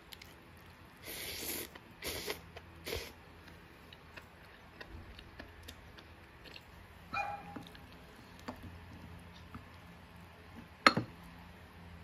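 A dog yelps briefly about seven seconds in. Eating noises come before it: three short noisy slurps in the first three seconds. A single sharp knock of a utensil on a dish comes near the end and is the loudest sound.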